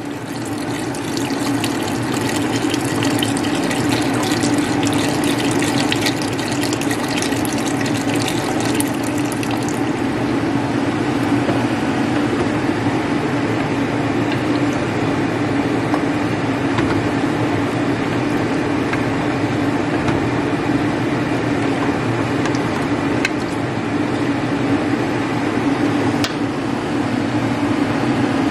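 Chicken stock pouring from a carton into a pot of cooked chicken, splashing and fizzing for about ten seconds, then stopping and leaving a calmer liquid noise over a steady low hum.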